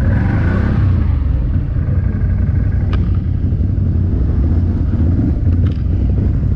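ATV engine running while riding, a steady low rumble, with a single click about three seconds in.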